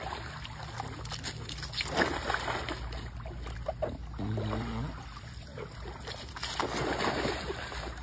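Pool water splashing and sloshing around a person wading and a small dog set in to swim, with heavier splashes about two seconds in and again near the end.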